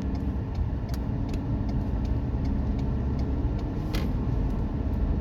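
Steady low rumble of a car's engine and tyres heard from inside the moving car, with a few faint clicks.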